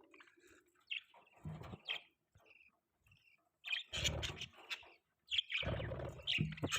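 Budgerigars chirping in short, irregular bursts with pauses between them.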